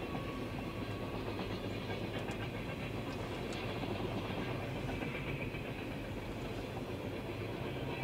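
Freight cars of a CSX train rolling past, a steady rumble of steel wheels on the rails, heard through the glass of a car window.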